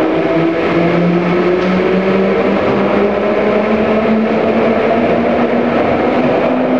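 London Underground 1967 Stock train accelerating away from the platform. Its traction motors give a whine that rises slowly in pitch over the rumble of wheels on rail.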